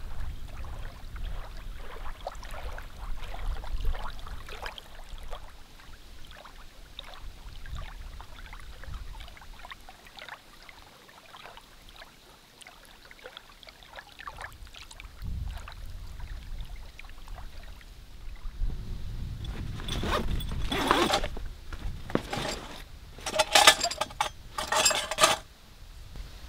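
Faint scattered ticks and clicks over a low rumble, then near the end several long, loud zips as the zippers of a nylon bag are pulled open and shut.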